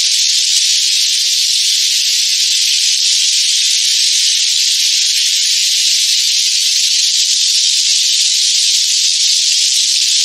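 Steady, loud, high-pitched hiss with no low sound under it, unchanging throughout.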